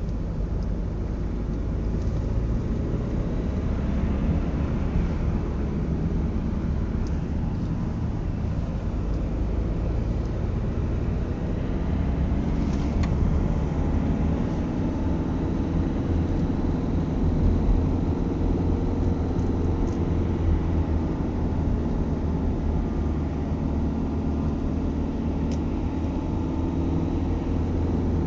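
Car engine and tyre noise heard from inside the cabin while driving: a steady low rumble, with the engine note rising and falling in the second half.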